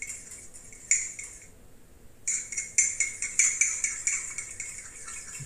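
A utensil clinking rapidly against a mug while beating eggs inside it. It stops briefly about one and a half seconds in, then starts again.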